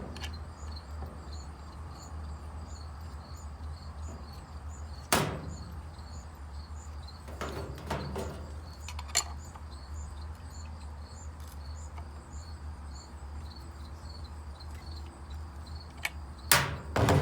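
Occasional knocks and clicks of sandblast-gun parts and packaging being handled, the loudest about five seconds in and a few more near the end, over a steady low hum and a faint, evenly repeating insect chirping.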